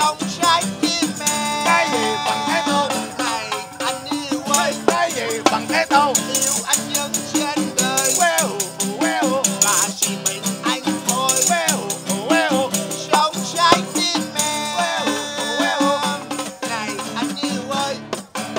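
A man singing a song live, accompanied by an acoustic guitar and a tambourine shaken and struck in rhythm.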